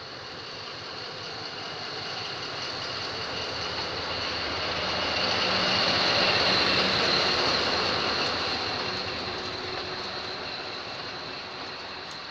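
Two D10H diesel locomotives with Caterpillar engines running past close by, one after the other. Engine and rolling noise build to their loudest about six to seven seconds in, as the first cab passes, then ease off.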